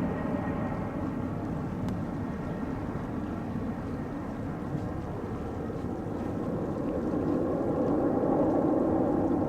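Airbus Helicopters EC225LP Super Puma twin-turbine helicopter running, a steady rotor and turbine sound that grows louder near the end.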